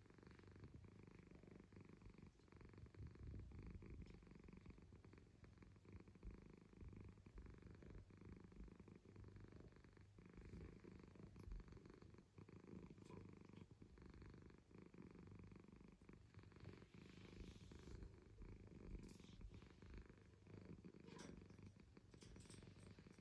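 Domestic cat purring faintly and steadily while being stroked on the head, a low, continuous purr.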